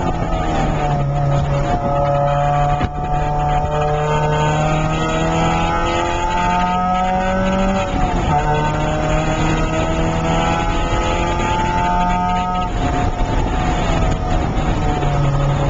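Porsche 968's 3.0-litre four-cylinder engine running hard on track, heard from inside the cabin. Its pitch climbs and then drops back several times as the gears change, over steady wind and road noise.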